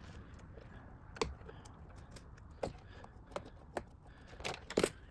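Scattered small clicks and taps of a small screwdriver and wire ends being worked into a screw terminal on a panel's mains switch, about six in all, with the loudest pair close together near the end.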